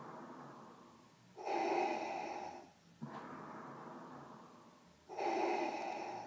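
Darth Vader's mechanical respirator breathing sound effect: two slow, rasping breath cycles, each a louder hiss followed by a softer, fading one.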